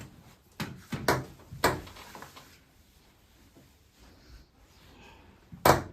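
Sharp thumps and knocks of hands working a patient on a treatment table during a chiropractic hip adjustment: three in quick succession in the first two seconds, then a louder one near the end.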